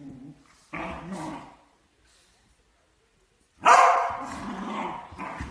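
Two dogs play-fighting, growling and barking in short bursts, with a pause in the middle and the loudest bark a little past halfway.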